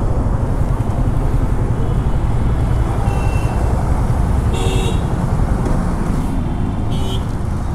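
Yamaha FZ25's 249 cc single-cylinder engine running as the bike is ridden slowly, mixed with wind noise on the rider's camera microphone. A short horn toot from traffic sounds about halfway through.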